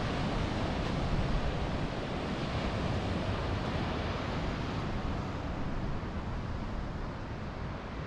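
Steady wash of ocean surf breaking below, with wind buffeting the microphone as a fluctuating low rumble.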